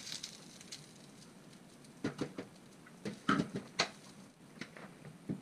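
Cooked rice being spooned into a pan as the base layer of a chicken biryani: scattered light knocks and scrapes of the utensil against the pan, in small clusters, loudest a little past the middle.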